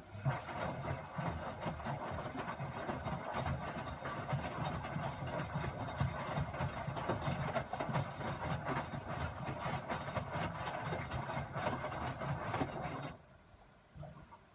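Miele WS 5406 front-loading washing machine running at the start of a 95 °C boil-wash cycle. It runs noisily and steadily for about thirteen seconds, then stops abruptly.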